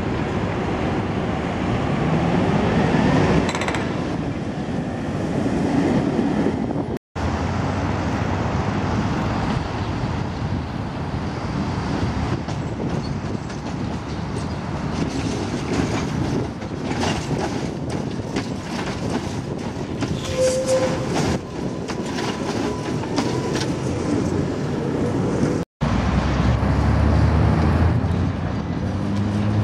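Tatra trams running past on their tracks, steel wheels clattering on the rails, over a steady noise of road traffic. A motor whine rises in pitch a couple of seconds in.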